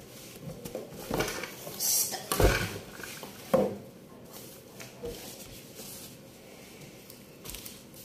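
Handling noises: a few short knocks and rustles in the first four seconds, the sharpest about two and a half and three and a half seconds in, then low room sound.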